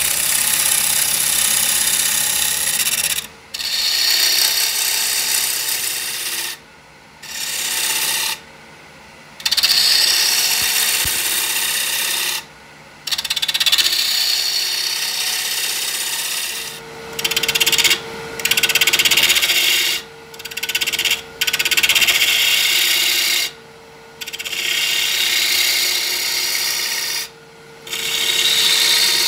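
Walnut spinning on a wood lathe with something rubbing against it, a scratchy hiss in passes of a few seconds broken by short pauses, over the steady hum of the lathe.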